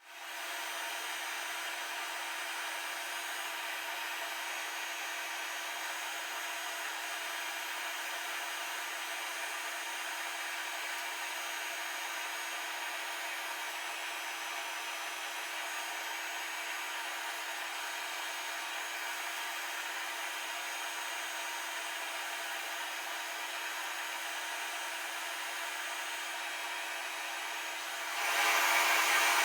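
A small power tool running steadily with an even whirring noise, which grows louder near the end.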